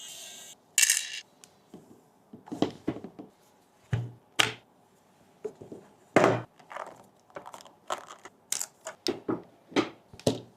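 Irregular sharp clicks and clacks of metal keycaps and keyboard parts being handled and set down, with a short bright metallic ring about a second in.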